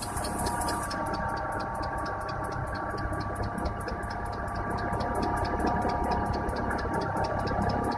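Renault car engine idling cold, with a steady whine and, from about a second in, a fast, even ticking. These are the extraneous noises that appeared on the cold engine after the crankshaft oil seal and timing belt were replaced.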